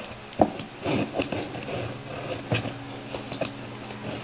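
Kitchen shears cutting the packing tape along the seam of a cardboard box: irregular snips, scrapes and knocks of the blade against the cardboard, the sharpest about half a second in and again about two and a half seconds in.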